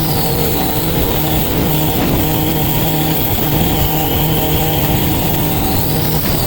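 Petrol lawn mower engine running steadily under load, with a faint high whine that dips and rises in pitch.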